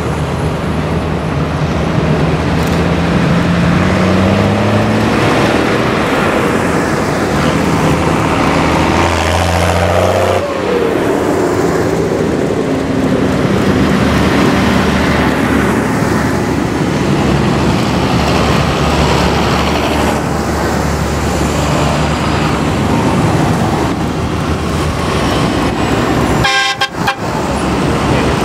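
Large diesel farm tractors drive past one after another, their engines working hard, with one engine note falling in pitch as it goes by about ten seconds in. A vehicle horn toots among them, and the sound cuts out briefly near the end.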